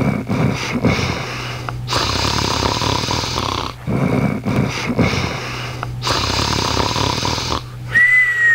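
Beagle snoring in deep sleep: two slow breaths, each a rattling snore followed by a long breathy hiss. Near the end a thin high tone starts and slowly falls in pitch.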